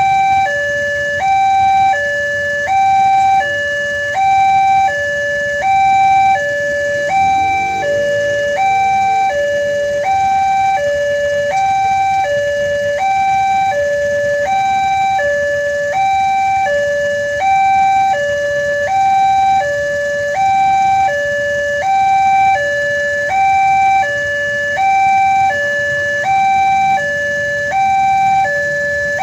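Railway level-crossing warning alarm sounding its electronic two-tone signal, a higher and a lower tone alternating about once a second, which warns that a train is approaching and the barriers are down.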